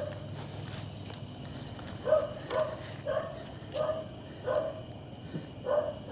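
A dog barking repeatedly: a run of about six short barks, roughly two a second, starting about two seconds in.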